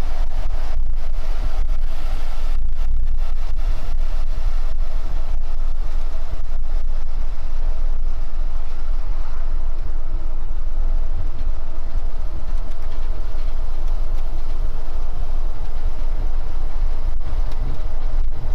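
Heavy vehicle driving at steady speed, heard from inside the cab: continuous engine and road rumble, strongest in the deep bass, with frequent short clicks and rattles.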